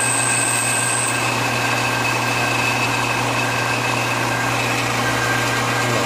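Metal lathe running steadily while a long, thin drill bit is fed slowly into a spinning bushing: a constant machine hum with a few steady whining tones, one high tone stopping about a second in.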